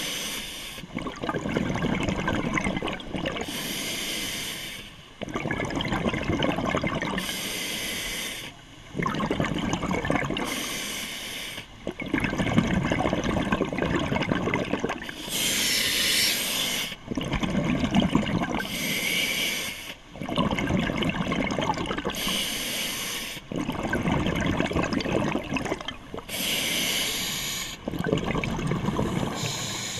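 Scuba diver breathing through a regulator underwater. Each breath is a hissing inhale followed by a longer, crackling rush of exhaled bubbles, in an even cycle of about one breath every three to four seconds.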